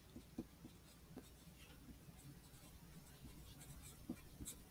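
Faint scratching of a pencil writing on paper, in short irregular strokes.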